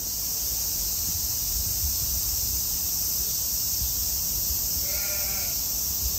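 Steady outdoor hiss and low rumble, with one short wavering call about five seconds in.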